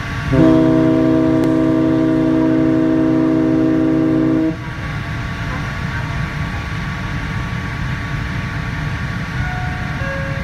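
The ferry Ishikari's ship whistle sounds one long, steady blast of about four seconds, a deep chord of several tones that cuts off sharply. Steady wind and sea noise continues after it.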